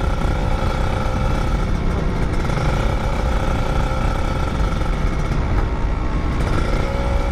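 Sport motorcycle's engine running steadily while riding at an even speed, with a dense low rumble of wind on the microphone.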